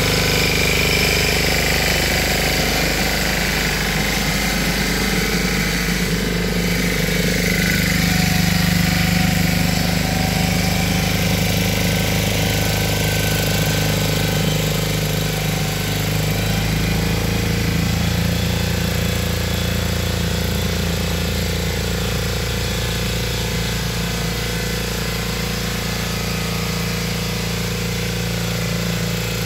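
Lombardini 8 hp single-cylinder engine of a Valpadana walk-behind tiller, running steadily at idle.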